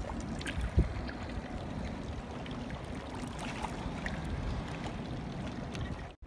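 Steady low rumble of river water lapping at the Thames foreshore, with a single thump about a second in.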